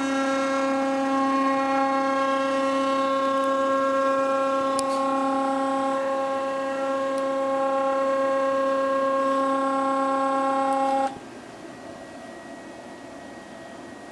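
Z-axis stepper motor of a DIY CNC machine, 420 oz-in, whining with a steady pitched tone and many overtones. It cuts off suddenly about eleven seconds in, leaving a quieter room hum.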